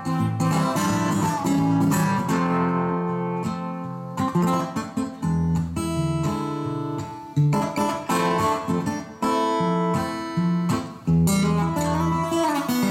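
Solo acoustic guitar playing an instrumental interlude of strummed and picked chords, with each chord ringing on before the next one is struck.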